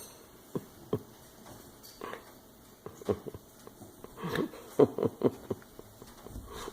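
A puppy playing with a toy: short scattered mouthing and chewing sounds, thickening into a quick cluster about four to five seconds in.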